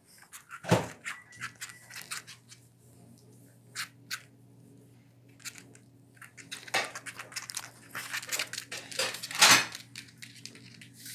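Close rustling, rubbing and clicking from a hand petting a small dog and from handling of the phone, in irregular bursts. The loudest knocks come just under a second in and about nine and a half seconds in, over a faint, low, steady hum that begins about a second and a half in.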